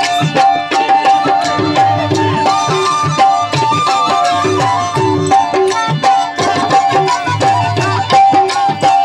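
Alghoza (paired double flute) playing a folk melody, with a dholak drum beating a steady rhythm under it.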